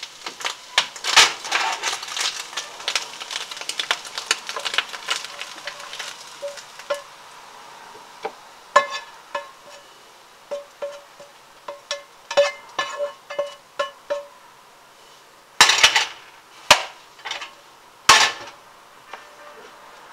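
Slotted spatula scraping and tapping a nonstick frying pan as fried hash is pushed out onto a plate, with the food still crackling for the first few seconds. The taps ring a little, and there are several loud knocks near the end as the pan is handled and put back on the stove.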